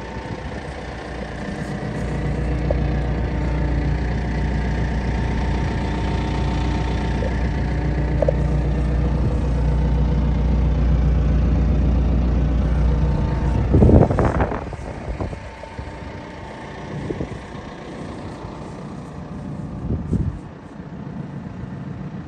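An engine idling steadily, with a short loud rush of noise about two-thirds of the way through, after which the engine is much quieter and there are a few faint knocks.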